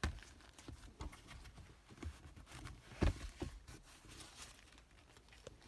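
Light, scattered clicks and rubbing from hands handling the shift lever's rubber boot and the phone, with one louder knock about three seconds in.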